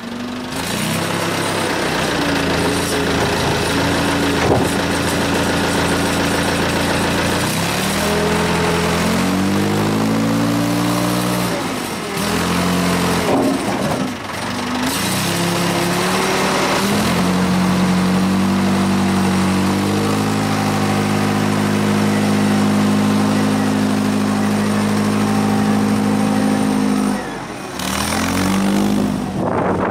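Volvo BM 642 wheel loader's diesel engine running under way, its note rising about eight seconds in, dipping briefly, then held high for most of the second half before dropping for a moment near the end and picking up again.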